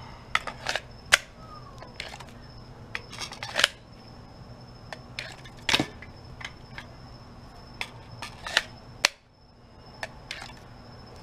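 Irregular sharp clicks and taps of small pistol parts and hand tools being picked up and set down on a work table, over a faint steady high tone.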